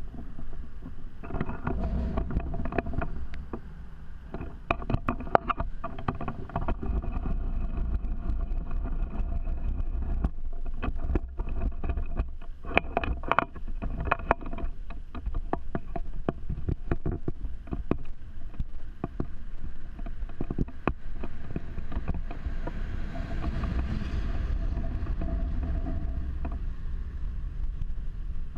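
Steady low outdoor rumble of wind and distant city noise on a hand-held camera high on a bridge, with many scattered clicks and knocks from handling the camera. A hissier rush swells around three quarters of the way through.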